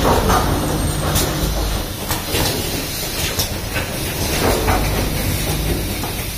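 Automatic rapid test kit assembly machine running: a steady low hum with sharp clacks and short hisses about once a second as its mechanisms cycle.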